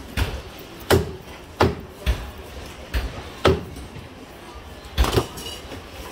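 Meat cleaver chopping lamb on a wooden chopping block: a series of about seven heavy, sharp chops at uneven intervals, two of them in quick succession about five seconds in.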